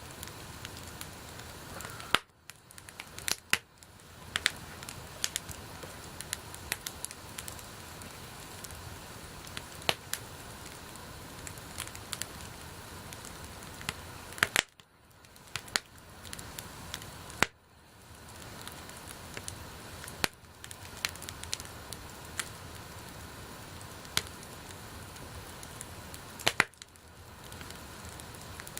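Wood fire burning: a steady hiss of flames with irregular sharp crackles and pops from the burning wood. The hiss dips away briefly a few times.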